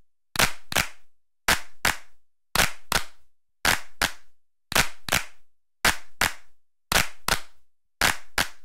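Backing track of sharp clap-like hits, struck in pairs about once a second, each hit dying away quickly, with silence between the pairs.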